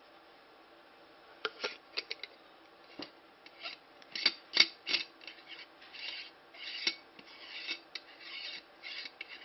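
Small plastic camera parts being handled and worked apart by hand: a run of sharp clicks and short scraping rubs that starts about a second and a half in, loudest a little past the middle.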